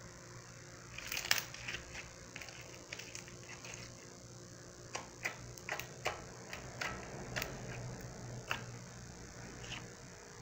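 Clear slime being squeezed and poked by hand, giving a run of irregular sticky clicks and small pops from about a second in.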